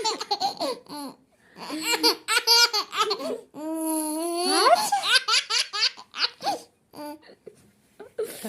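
A baby laughing in repeated bursts of giggles, with a longer rising voiced sound in the middle and more laughter after it.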